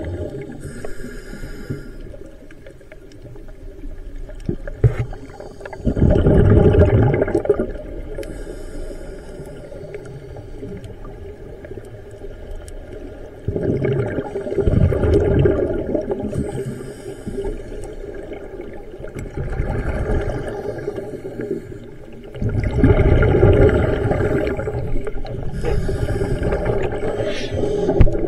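Underwater sound picked up by a camera in a housing: a steady hum under the water's noise, broken by several louder rushing bursts of water and bubble noise lasting a second or two each, a few seconds apart.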